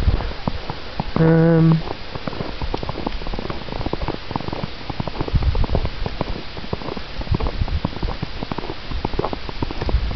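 Footsteps crunching irregularly in fresh snow, with low rumbling handling noise on the camera microphone. About a second in comes a brief held hum.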